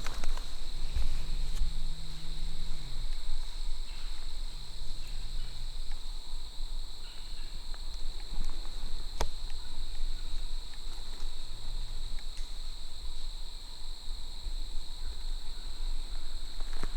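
Insects singing in a steady, unbroken high-pitched drone over a low rumble, with one sharp click about nine seconds in.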